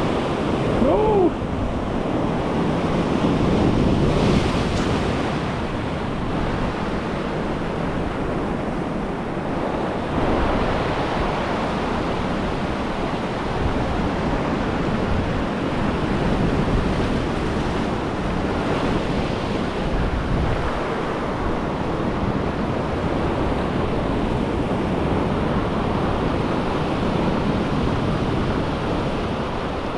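Ocean surf washing over a rocky shore ledge, foaming whitewater that swells and eases in surges every several seconds.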